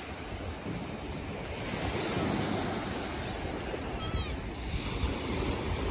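Small waves breaking and washing up onto a sandy beach, swelling a little about two seconds in.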